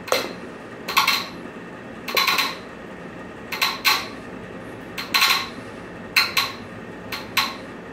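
Ultrasonic piezo buzzer popping as its trigger button is pushed repeatedly: about ten sharp pops with a brief metallic ring, singly or in quick pairs roughly every second, over a steady background noise. The builder says each pop sends a pressure wave into the Graviflyer's center plate to tune it into phase.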